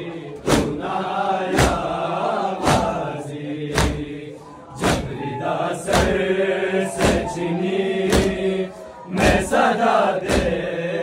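A crowd of men chanting a noha together, held notes rising and falling, over loud unison chest-beating (matam) strikes at a steady pace of about one a second.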